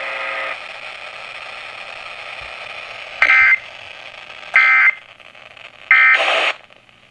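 Three short screeching bursts of EAS digital data, the SAME end-of-message code that closes an alert broadcast, about a second and a third apart, after a stretch of steady static hiss.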